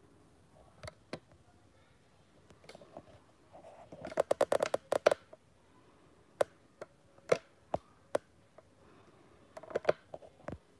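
Sharp clicks and taps of something being handled: a quick rattling run of clicks about four seconds in, then single clicks every half second or so, and a short cluster near the end.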